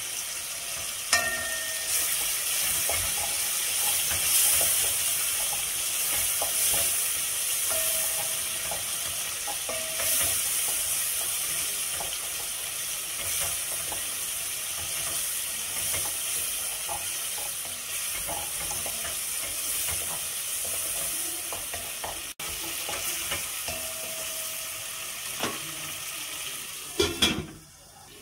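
Chopped tomatoes and onions sizzling in oil in a metal pot, with a wooden spoon stirring and scraping against the pot. Near the end there are a few clatters as a metal lid is set on the pot, and the sizzle turns quieter.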